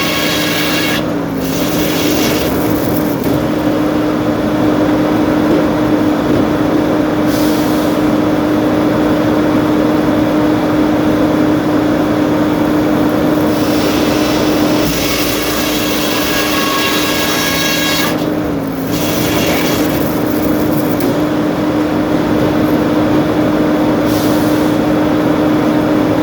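Sawmill machinery running continuously, a loud steady mechanical hum with a held tone that briefly sags in pitch twice, about a second in and again about two-thirds of the way through.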